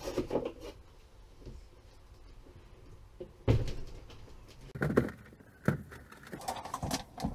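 A few knocks and bumps as an RV refrigerator is wrestled out of its cabinet and set down. The loudest is a single thud about three and a half seconds in, with lighter knocks around five seconds.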